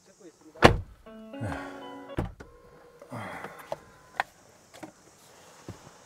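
Clunks and knocks as a person climbs out of an SUV through its open driver's door, the loudest a sharp knock a little over half a second in. A short run of musical notes sounds between one and two seconds in.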